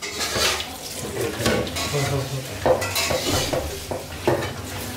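Hands rubbing and rinsing sliced bamboo shoots in a metal pot of water: wet swishing and scraping strokes, irregular and about one a second, with light knocks of the pot.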